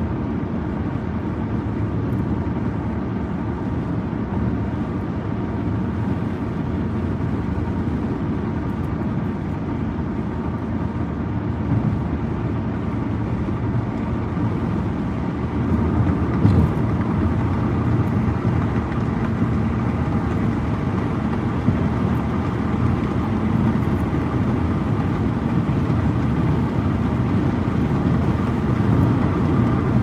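Steady road noise inside a moving car's cabin: a low rumble of tyres and engine that gets a little louder about halfway through, with one light knock just after.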